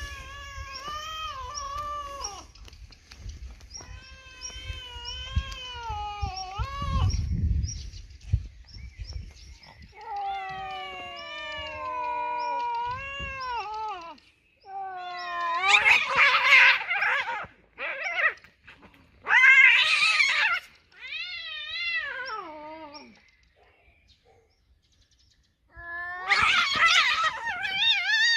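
Street cats caterwauling at each other in a fight standoff: long, wavering yowls that bend up and down in pitch, turning louder and harsher later on, with a short lull before a final loud screech.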